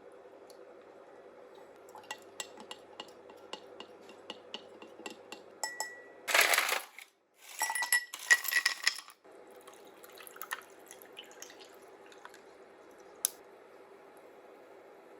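Kitchen prep sounds: light clinks and taps of dishes and utensils over a steady background hum, with two louder bursts of clattering noise in the middle that cut off abruptly, and one sharp click near the end.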